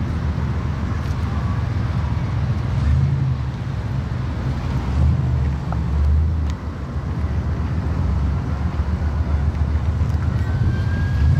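1966 Porsche 911's air-cooled flat-six engine idling steadily, heard close to its tailpipe.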